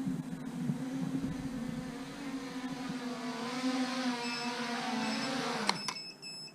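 Small electric motors and propellers of an FPV quadcopter running with a steady whine, the pitch holding while the upper harmonics build. It cuts off suddenly with a click near the end.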